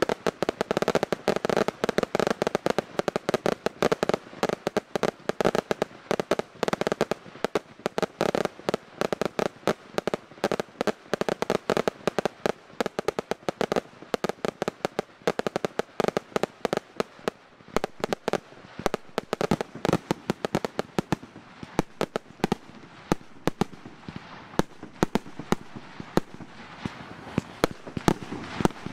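A daytime firework barrage: a rapid, dense string of small aerial bangs and cracks, with a steady whistling tone under them for roughly the first half, thinning to scattered bangs in the second half.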